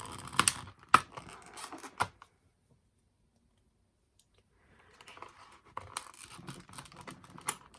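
A knife cutting and tearing into a padlock's packaging: scraping and tearing with several sharp cracks, stopping for a couple of seconds midway, then scratching and clicking again.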